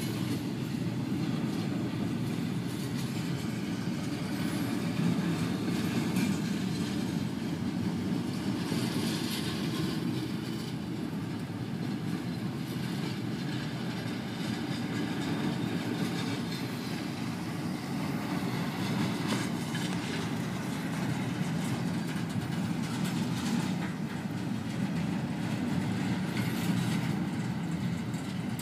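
Freight cars of an intermodal container train rolling past, a steady low rumble of steel wheels on rail with some clickety-clack, with heavy rain hissing over it.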